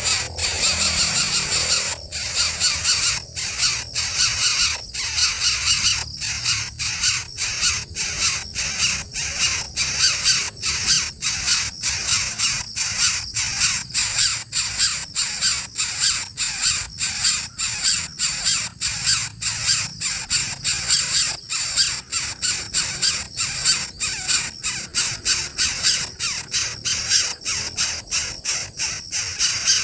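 Coucal chick giving a harsh, high-pitched rasping call over and over, about two to three a second.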